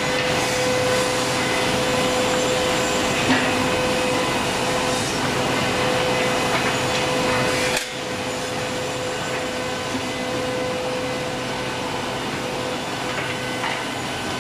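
SM 19J automatic wood cut-off, drilling and dowel-inserting machine running, with dust-extraction suction: a steady motor hum with a constant whine and occasional light knocks as pieces are fed and worked. It is a little quieter from about eight seconds in.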